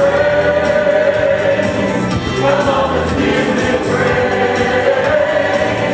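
Mixed church choir of men's and women's voices singing a gospel song, in long held notes.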